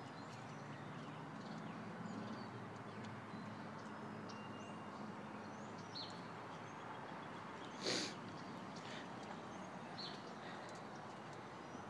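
Faint outdoor background noise with a low hum through the first half, a few small ticks, and one short, sharp burst of noise about eight seconds in.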